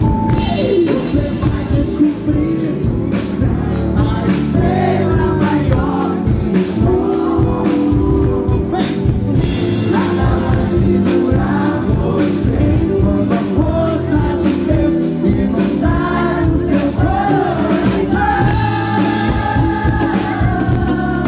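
Live band playing through a PA, with drums and electric guitar under a man singing into a microphone.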